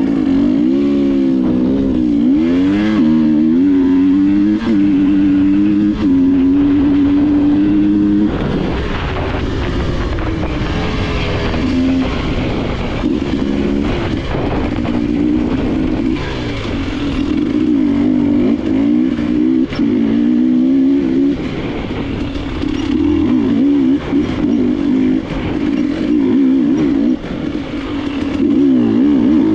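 KTM enduro dirt bike engine being ridden hard on a trail, its pitch rising and falling over and over with the throttle and gear changes, with scattered knocks from the bike over rough ground.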